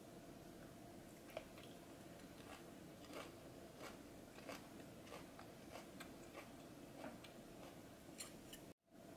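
Faint, scattered crisp clicks and light crunches of chopsticks handling fresh stonecrop shoots dressed in red pepper paste sauce, over a steady faint hum. The sound cuts out for a moment near the end.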